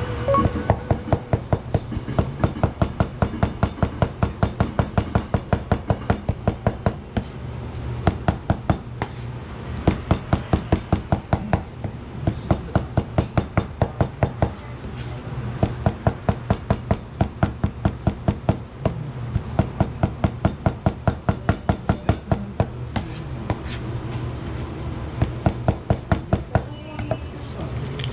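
Kitchen knife rapidly mincing vegetables on a cutting board: quick, even chopping strokes about five a second, in runs of several seconds with short pauses, over a steady low hum.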